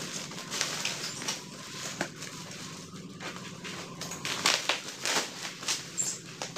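Plastic packaging rustling and crinkling with irregular clicks as new curtains are handled and unwrapped.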